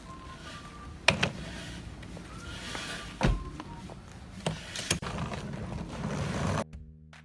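A few sharp knocks and thumps over a steady rumbling background noise, the loudest about a second in and another just after three seconds. The noise cuts off suddenly near the end as music begins.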